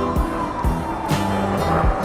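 Rock music soundtrack with a steady drum beat and held guitar notes.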